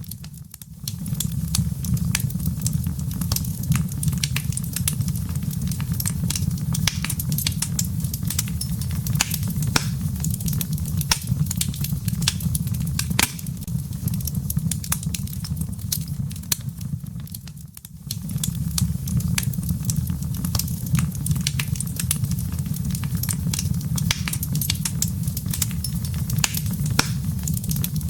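Wood fire crackling in a fireplace: a steady low rumble of burning with many sharp pops and snaps throughout. The low rumble briefly drops away twice, just after the start and about two-thirds of the way in.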